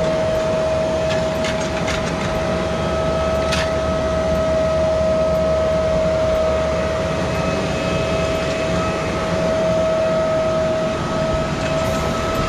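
Case IH 150 tractor at work with a maize planter, its engine running steadily under a constant high-pitched whine.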